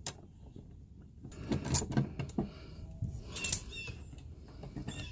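Clicks and rattles of a 10 mm socket wrench working a screw out of a car door panel, in two short clusters with a sharp click at the start.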